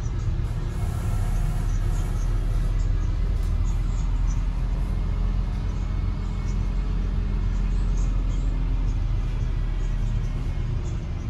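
Steady low engine rumble and road noise of a bus driving slowly through city streets, heard from on board.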